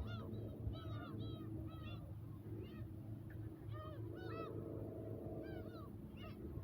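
A flock of black-tailed gulls calling, many short arched calls overlapping one after another, over a steady low wind rumble on the microphone.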